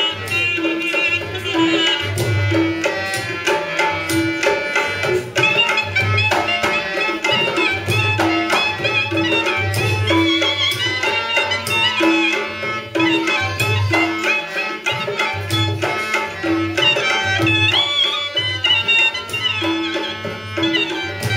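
Indian folk music: a hand drum plays a steady, repeating beat under an ornamented melody line that slides and wavers in pitch.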